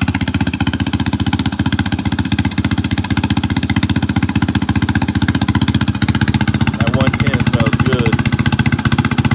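Turbocharged single-cylinder engine of a 2016 Yamaha Raptor 700 quad, fitted with a D7 turbo kit, idling steadily with a fast, even chop of exhaust pulses.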